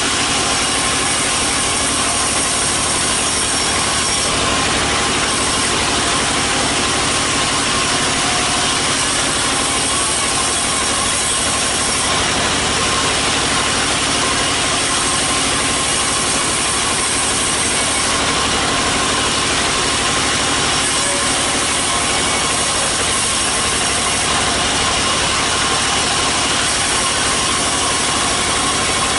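Large vertical bandsaw driven by a small stationary engine, running steadily while teak planks are fed through the blade. A high hiss strengthens and fades every few seconds over the steady machine noise.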